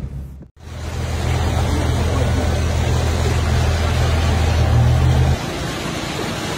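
Brown floodwater rushing, under a steady low engine drone that starts after a brief dropout about half a second in and cuts off about five seconds in, leaving just the rush of water.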